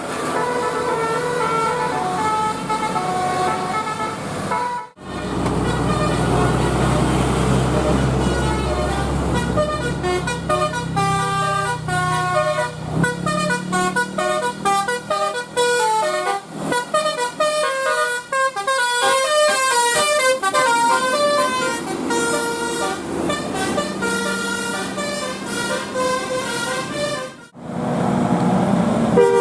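Bus 'telolet' multi-tone air horns playing quick melodic tunes, note after note, over a bus engine's low rumble. The sound breaks off abruptly twice, about five seconds in and near the end.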